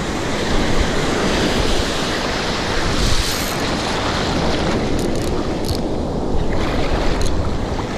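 Ocean surf washing over the shore and around the angler's legs, with wind on the microphone. A few short ticks around the middle and near the end.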